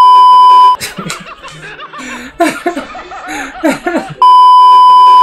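A loud, steady test-tone beep of the kind played over TV colour bars sounds for about a second, then cuts off; a man laughs and chuckles for about three seconds, and the same beep returns near the end for about a second before cutting off.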